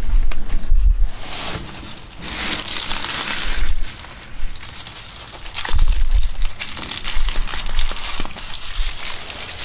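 Plastic adhesive backing strip crinkling as it is peeled off foam pipe insulation, with hands rubbing and pressing the foam closed around an air conditioner's refrigerant line. The crinkling comes and goes in stretches, with a few dull bumps.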